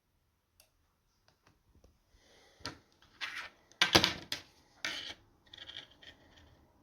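Handling noise: a few light clicks, then several short bursts of rubbing and scraping, the loudest about four seconds in.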